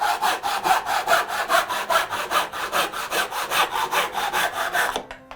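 Hand saw cutting wood in quick, short, even strokes, stopping abruptly about five seconds in.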